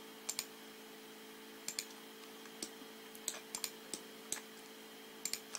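Computer mouse clicking: about a dozen short, sharp clicks at uneven intervals, several in quick pairs, over a faint steady electrical hum.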